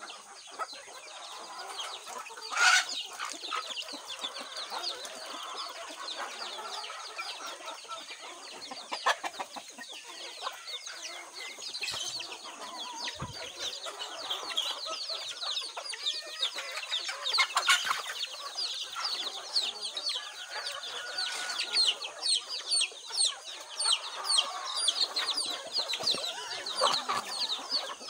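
A flock of chickens clucking, over many rapid, high peeping calls from young chicks. A few louder calls stand out, one about three seconds in and another a little past the middle.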